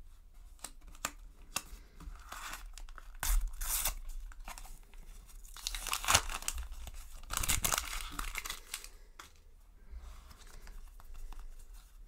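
A Panini sticker packet being torn open by hand, the paper wrapper tearing and crinkling in several bursts, with small clicks of the stickers being handled.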